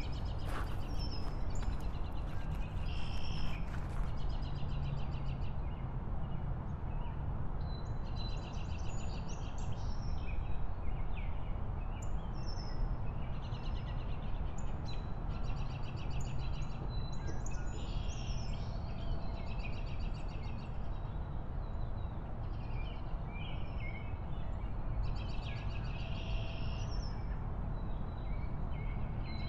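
Steady low rumble of wind and road noise on a moving motorbike, with bird chirps and trills coming and going above it.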